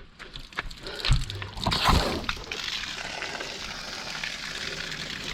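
Water overflowing from a tank being filled, pouring and splashing steadily, with a few knocks and thumps between one and two seconds in.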